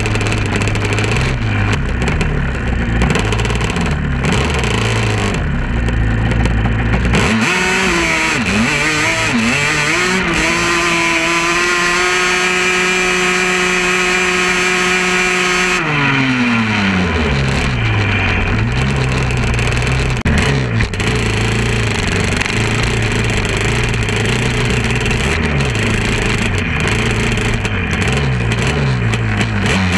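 Sand-dune quad (ATV) engine heard from on board, running at low, uneven revs. About seven seconds in it revs up hard and holds high revs for several seconds, then drops back to lower, changing revs around halfway through.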